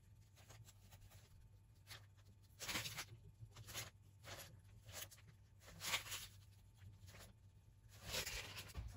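Faint, short rustles, about five of them spread out, from a small piping bag of caramel sauce being squeezed and moved over a tray lined with baking paper. A faint low hum runs underneath.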